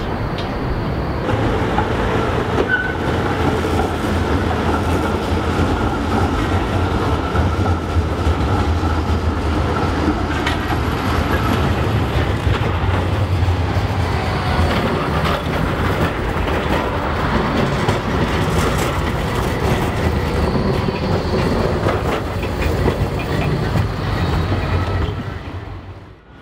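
Zürich street trams running past on their rails: a steady rumble of wheels on track with scattered clicks and a faint high whine.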